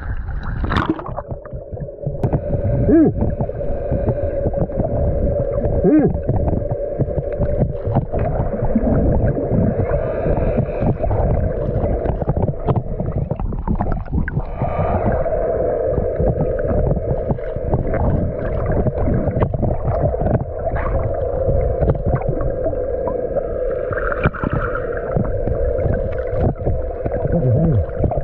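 Yamaha underwater scooter's electric motor running, a steady hum heard underwater, with water rushing and bubbling around the microphone.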